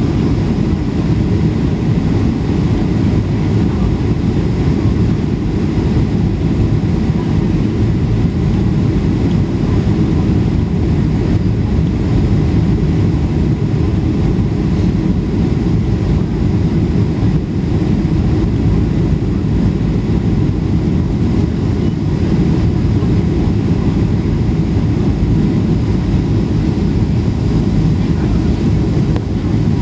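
Steady low rumble of an airliner's engines and rushing air, heard from inside the passenger cabin as the plane comes in to land.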